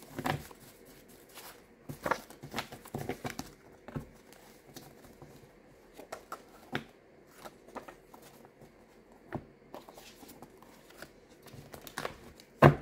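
Tarot cards being handled: scattered rustles and light flicks of the cards at irregular moments, with one sharp snap of a card near the end.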